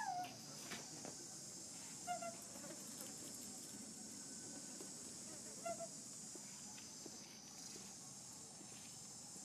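Steady high-pitched drone of insects, with a few short chirping animal calls: a falling one at the very start, others about two seconds in and just before six seconds.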